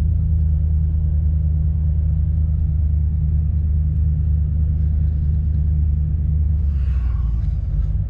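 Pickup truck driving, heard from inside the cab: a steady low drone of engine and road noise.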